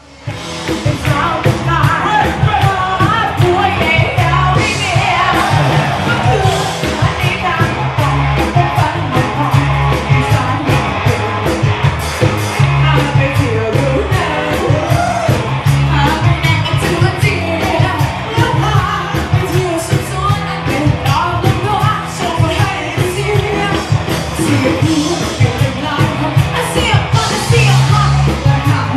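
Live rock band music with a woman singing lead into a microphone over a steady drum beat and bass.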